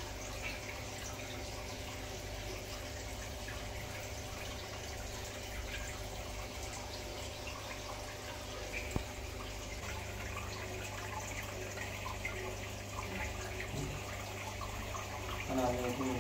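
Water trickling and dripping over a steady low hum. A voice starts near the end.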